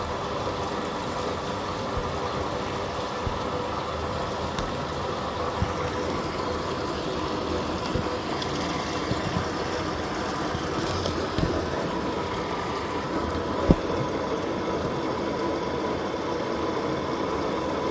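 Living & Co 5.5 kg top-loading washing machine filling with water: a steady rush of water with a faint steady hum, and a light knock about fourteen seconds in.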